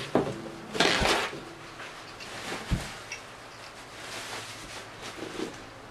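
Paper napkin rustling as it is handled and wiped across the mouth, louder about a second in, with a soft thump near the middle.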